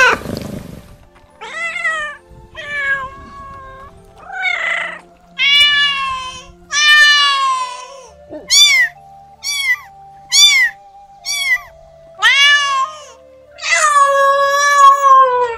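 Domestic cats meowing over and over, about a dozen separate meows. Most are short and rise then fall in pitch, and a long drawn-out meow comes near the end.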